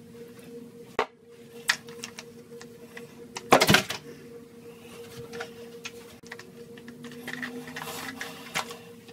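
Clicks, taps and rustling of makeup and small items being handled close to the microphone, with one loud rustling burst about halfway through, over a faint steady hum.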